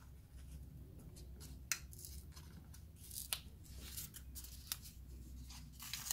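Scissors snipping notches into the end of a cardboard toilet-roll tube: a few sharp, separate snips spread over several seconds, over a steady low hum.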